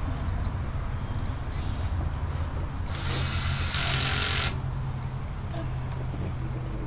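Rustle and scrape of a flower arrangement being handled and set against the wall, lasting about a second and a half, about three seconds in, over a steady low hum.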